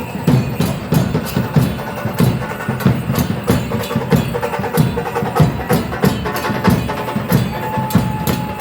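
Dance percussion: a low drum beating in a steady rhythm under sharp, wood-like clicks about three times a second. A faint held tone enters near the end.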